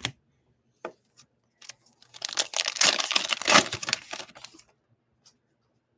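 Wrapper of a Topps baseball card pack being torn open and crinkled by hand: a couple of light clicks, then about three seconds of crackling tearing that dies away near the end.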